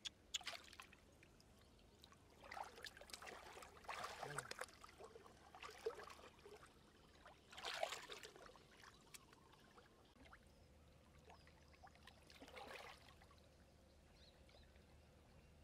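Faint sloshing and splashing of muddy water in irregular bursts, as a person wading in a shallow pool sweeps hands and legs through it, feeling for fish.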